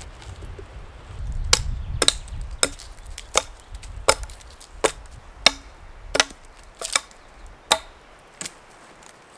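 Hatchet chopping into pine wood: about ten sharp blows, a little more than one a second, starting about a second and a half in and stopping shortly before the end.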